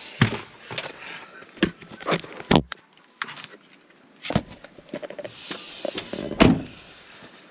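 Sharp clunks and knocks inside a Renault Triber's cabin, about six spread through, the loudest near the end, with a power window motor running.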